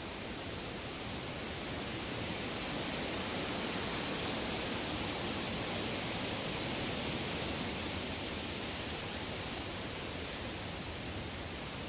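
Woodland atmosphere: a steady rushing hiss with no distinct calls or knocks. It swells gently a couple of seconds in and eases toward the end.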